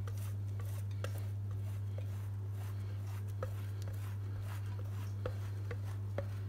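Cheese being grated on a hand-held metal grater: a run of soft, irregular rasping strokes with a few light ticks. A steady low hum runs under it and is the loudest sound.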